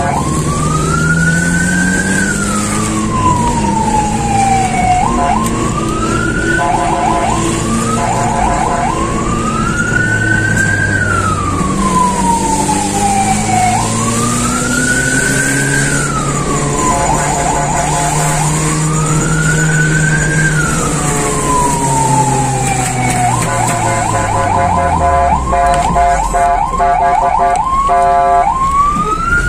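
Fire-rescue vehicle's siren on an emergency run: a wail that climbs over about two seconds and falls over about four, repeating, with short bursts of fast pulsing yelp between the wails and a longer run of them near the end. The vehicle's engine runs underneath, its pitch rising and falling with speed.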